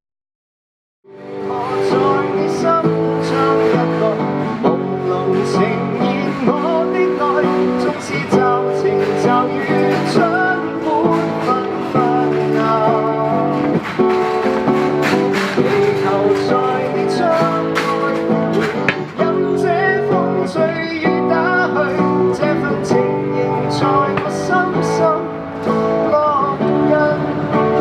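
A song with guitar and a singing voice, beginning after about a second of silence.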